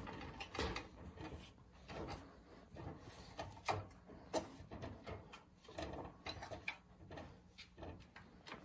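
Wire pet cage rattling and clicking irregularly as kittens paw at a pompom wand toy through the bars and the wand knocks against the wire, with two sharper clicks near the middle.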